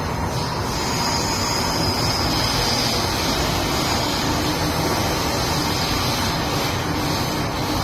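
MTR M-train (Metro-Cammell electric multiple unit) running, heard from inside the car as a steady rumble of wheels and motors. A high whine joins about half a second in and fades near the end.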